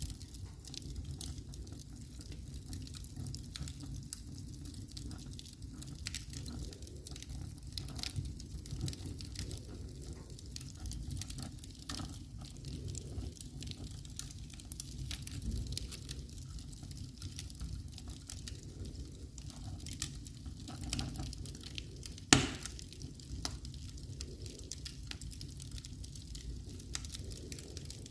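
Fire burning in a fireplace: a steady low rumble with scattered crackles and small pops, and one sharp, loud pop about 22 seconds in.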